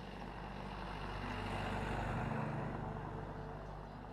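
A motor vehicle going past, its engine and tyre noise growing louder to a peak about two seconds in and then fading away.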